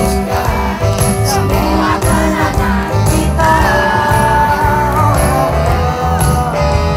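Pop song performed live by a singer and band over a loud PA, the vocal line holding a long note midway over a steady bass beat.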